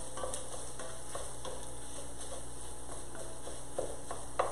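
Italian sausage sizzling steadily as it browns in an enameled cast iron Dutch oven, with light scattered clicks of a utensil against the pot and a couple of sharper clicks near the end.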